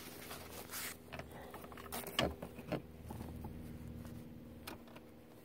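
Faint, scattered clicks and rustles from handling a metal ignition key-cylinder housing and its cable, over a faint steady low hum.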